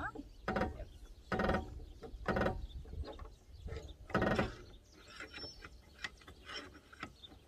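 Car jack being cranked by its handle, with metal grinding and clanking in uneven strokes, four louder ones in the first half and fainter ones after, as the car is let down after a wheel change.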